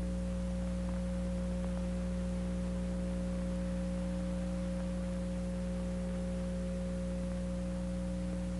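Steady electrical hum, a few constant low tones over faint hiss, with no change in pitch or level: mains hum carried on an old archival film soundtrack.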